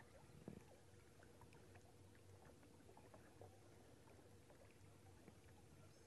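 Near silence: faint background noise with a faint steady hum and a few faint scattered ticks.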